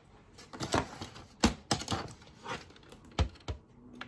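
Hard plastic game parts clicking and knocking together as they are handled, about seven irregular sharp clicks.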